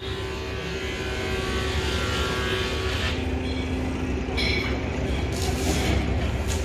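Tractor engine running steadily with a low rumble, joined by a few short sharper sounds in the second half.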